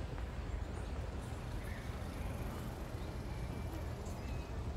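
Outdoor ambience: a steady low rumble, with a few faint bird chirps.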